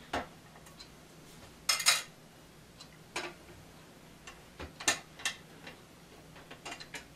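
Scattered metal clicks and clinks of a theater seat's steel bracket and bolts being handled and fitted together, about half a dozen short knocks, the loudest about two seconds in.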